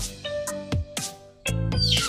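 Background music with a regular beat, and a quick falling chirp sound effect near the end.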